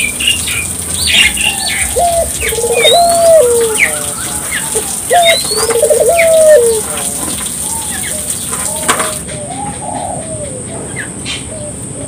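Puter dove (a collared dove) cooing: several phrases that step up and down in pitch, loudest in the first seven seconds and fainter after. Other small birds chirp high behind it.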